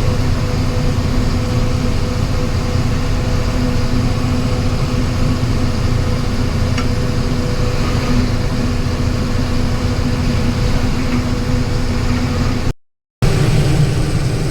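Steady engine and road noise of a vehicle driving along a highway, a low rumble with a constant hum. The sound cuts out completely for a moment near the end, then resumes.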